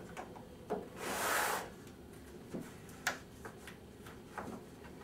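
Wooden parting stop scraping against the window frame as it is slid into place across the top, about a second in, with a few light wooden knocks and clicks as it is handled and positioned.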